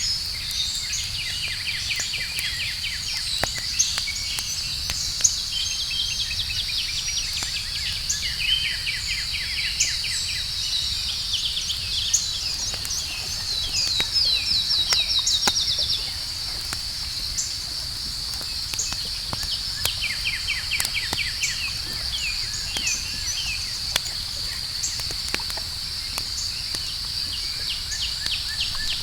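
Campfire crackling with scattered sharp pops, under a steady high chorus of night insects and repeated pulsing trills. One louder trill lasts about two seconds midway through.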